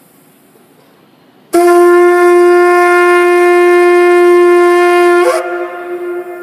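A shofar, a long curled animal horn, blown in one long steady blast. It starts suddenly about a second and a half in, holds one loud pitch for about four seconds, then weakens to a softer tail near the end.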